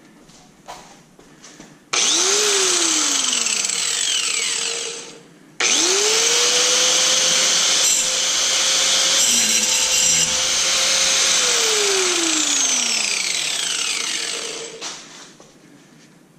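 Handheld power cutting tool run twice: a short run about two seconds in that winds down, then a longer cut a few seconds later with a steady high motor whine under harsh grinding noise, the motor winding down over its last few seconds.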